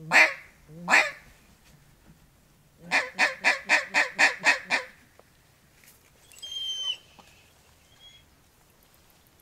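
Mallard-style quacking: two drawn-out quacks, then a couple of seconds later a quick run of about eight quacks at roughly four a second. A brief high whistle follows a little after six seconds in.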